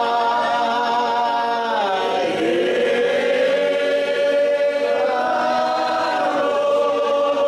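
Men's group chanting a devotional moulood chant in unison on long held notes. The melody slides down about two seconds in and rises again around five seconds in.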